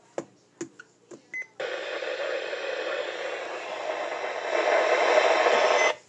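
Weather radio: a few clicks and a short beep from its buttons, then a steady hiss of static from its speaker on a weather-band channel, growing a little louder before cutting off suddenly.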